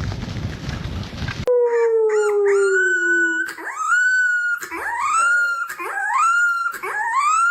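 A rushing noise cuts off after about a second and a half, then a dog howls: one long falling note, then a run of high, rising howls about one a second.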